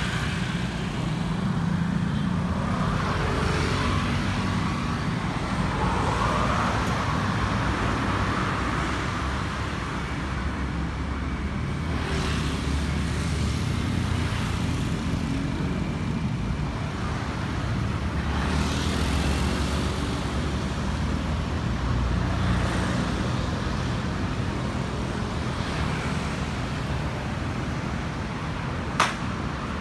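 City street traffic: a steady roar of road noise as several vehicles pass one after another, each swelling and fading. A single sharp click comes near the end.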